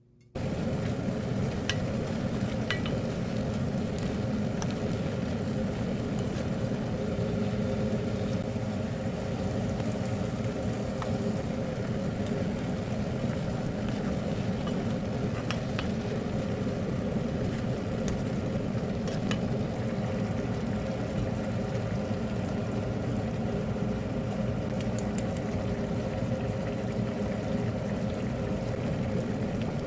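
Food cooking on a stovetop: a steady, even cooking noise with a faint hum and a few small clicks, starting abruptly just after the beginning.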